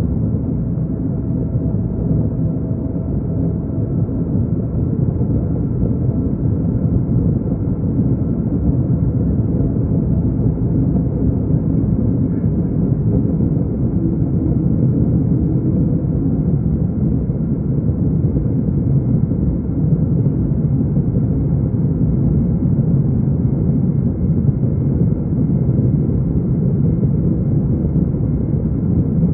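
Steady cabin noise inside a Boeing 777-200 airliner on approach: engine and airflow noise heard from a window seat as an even, low rumble that does not change.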